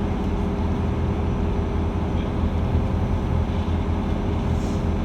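Steady low drone of a cruise boat's engine, an even hum that does not change.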